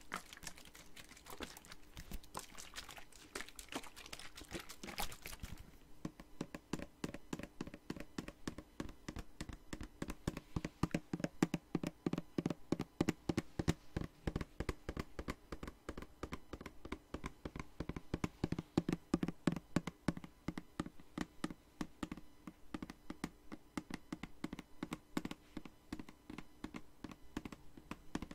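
Fingernails tapping fast on a spray bottle, a dense run of light quick taps. For the first five seconds the taps carry a brighter, hissy edge; after that they sound lower in pitch and come in quick flurries.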